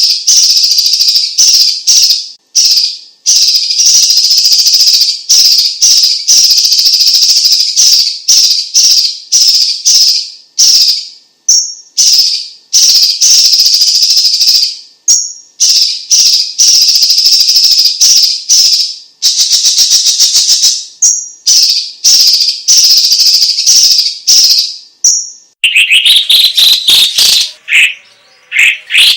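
Cucak cungkok (Chinese green leafbird) singing loudly: rapid, high, chattering song phrases of a second or two with brief pauses between them. Near the end it switches to lower, more varied whistled notes.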